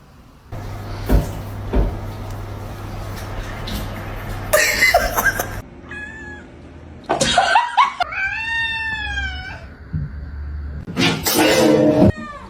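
Domestic cats meowing, with one long meow that rises and then falls in pitch about eight seconds in, between louder noisy sounds.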